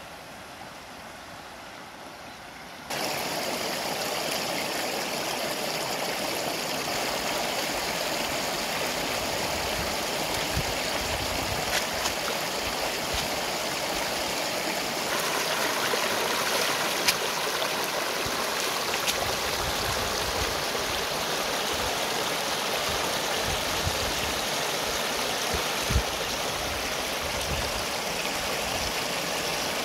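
Shallow, rocky river rapids rushing and splashing close by in a steady, even rush of water. It is fainter for the first few seconds and then much louder. Two brief clicks stand out, about halfway through and again near the end.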